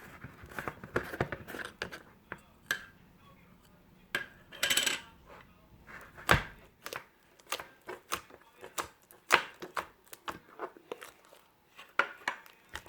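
Handling noise of small hard objects: irregular clicks and knocks, with a short hiss about four and a half seconds in.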